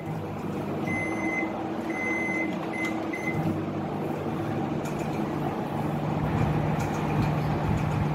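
Samsung CE117PC microwave oven's keypad beeping four times, two longer beeps and then two short ones. A little over three seconds in, the oven starts up with a steady low hum.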